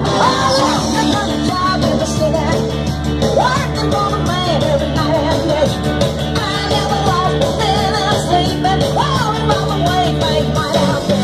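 Loud rock-and-roll music played over a PA, with a woman singing into a handheld microphone over steady instrumental backing.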